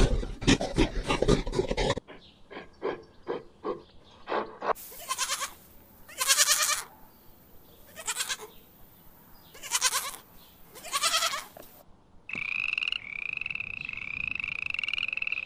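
Goat bleating in about five separate wavering calls between roughly five and eleven seconds in, then a frog croaking in a steady pulsing trill from about twelve seconds on. A quick run of clicks opens the stretch and fades out over the first few seconds.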